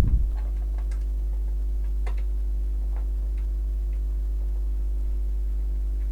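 A screw on a slide projector's cover being turned back in by hand: a brief handling knock, then faint, irregular small clicks and ticks, over a steady low electrical hum.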